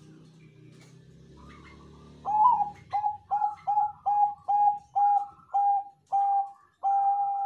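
A perkutut Bangkok (Thai-bred zebra dove) singing its cooing song, starting about two seconds in. It gives a quick run of about ten short coos on one pitch, and the notes grow longer and more spaced until the last one is held.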